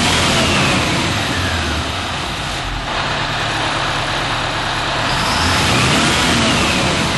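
Detroit Diesel two-stroke diesel engine running with its cover open, revved and let fall back. A high whine climbs and drops with the revs: it falls away over the first two seconds, then rises again about five seconds in and drops off.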